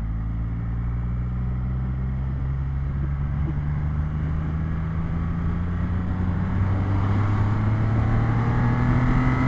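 Triumph Rocket 3 R's 2,458 cc inline three-cylinder engine pulling steadily at highway speed, around 100 km/h, its pitch rising slowly as the bike gains speed.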